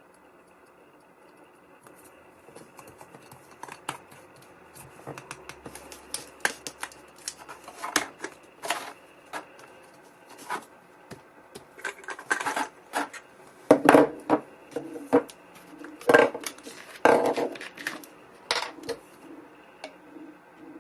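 Irregular clicks, taps and knocks of a small gadget and its packaging being handled and unpacked. They come sparsely at first, then get denser, with the loudest knocks in the second half.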